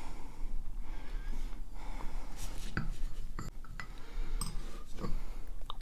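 A coffee saucer being handled, with a few faint, scattered clinks and taps of crockery.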